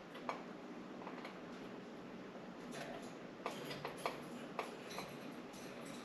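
Light, sharp clicks and taps, about six of them and mostly bunched together past the middle, from budgies clambering on window blinds. A faint high chirp comes near the end.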